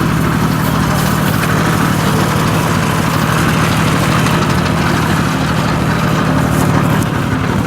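Engine of a two-wheel walking tractor with a trailer hitched behind, running steadily at low speed.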